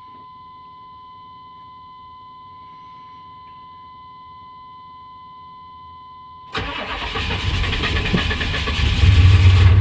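A steady high tone sounds while the engine waits, then the GM 6.5-litre diesel V8 in the truck cranks and catches about six and a half seconds in, getting louder toward the end. It starts up halfway decent: the engine is hard-starting and usually takes 30 to 45 seconds to fire.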